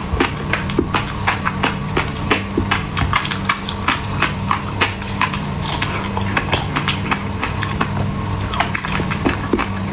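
Close-up eating sounds: quick sharp clicks and pops, about two or three a second, over a steady low hum from a refrigerator left running.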